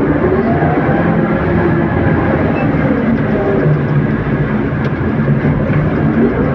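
Heavy rain making a steady, dense hiss, with a vehicle engine running underneath. The engine's pitch sweeps up about six seconds in.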